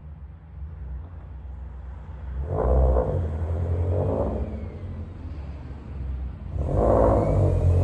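Subaru WRX STI's turbocharged 2.5-litre flat-four with an Xforce aftermarket exhaust, driving off and pulling away at moderate throttle. Under a steady low rumble the revs rise in swells about two and a half and four seconds in, then more loudly again near the end.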